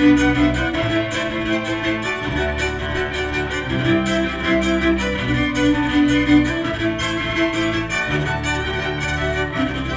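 Amplified string quintet of violins, viola and two cellos playing a fast dance-like movement, with held low cello notes that change every second or two under busy bowing from the violins.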